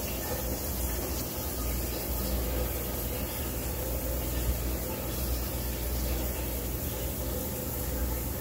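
Steady low hum and hiss of background noise with no distinct events.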